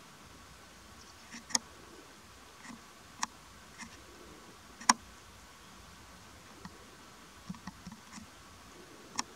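Faint steady hiss with about a dozen short, sharp clicks scattered irregularly, the loudest about one and a half and five seconds in.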